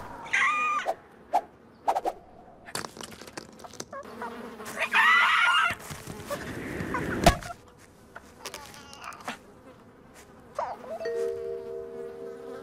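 Cartoon sound effects: a cartoon bird's shrill, warbling squawks, twice, among short knocks and clicks. Near the end a steady buzzing starts, like an insect.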